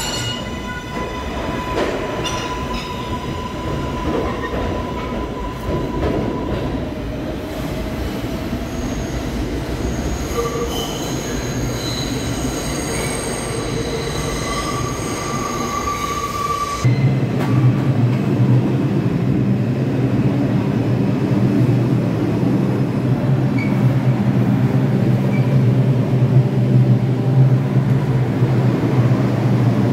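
New York City subway train running through a station with its wheels squealing in thin, high tones. About halfway through, the sound changes abruptly to a loud, steady low hum.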